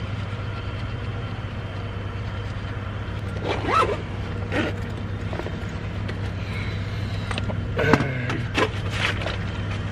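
Steady low hum of a running vehicle, with a few short sharp sounds over it about three and a half, four and a half and eight seconds in.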